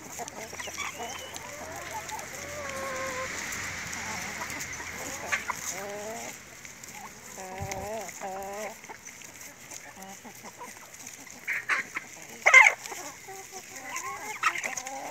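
A flock of hens clucking and giving drawn-out, wavering calls as they feed on cut grass. A few short, loud sharp sounds come close to the microphone about twelve seconds in.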